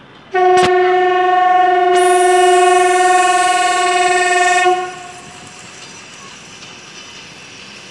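Air horn of an arriving EP2K electric locomotive sounding one long steady blast of about four seconds, with a hiss of air joining about halfway through; the horn cuts off and a steady low background noise remains.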